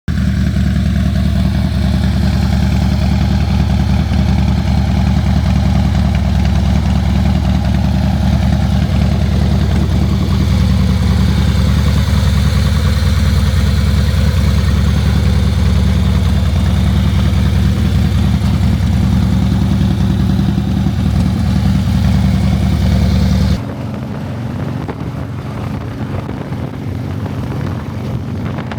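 Harley-Davidson FXR's V-twin engine running steadily, most likely idling, freshly started after a motor swap. About 23 seconds in it cuts abruptly to a quieter, rougher engine sound.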